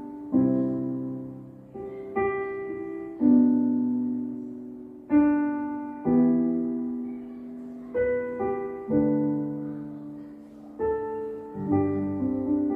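Piano playing slow chords, each struck and left to ring away before the next, a new chord every one to two seconds.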